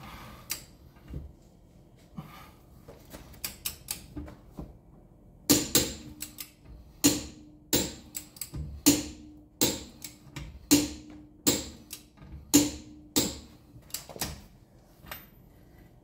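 Torque wrench on a car wheel's lug nut clicking over and over, a sharp metallic click with a short ring about every half second: the nut has reached its set torque. Softer, scattered clicks come first while the wrench is fitted and pulled.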